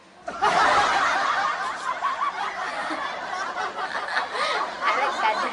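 Laughter from several voices at once, a dense overlapping chorus of giggles and chuckles starting about half a second in.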